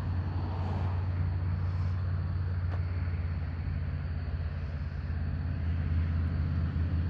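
Diesel bulldozer engine running steadily as it climbs a mountainside on its tracks: a constant low drone.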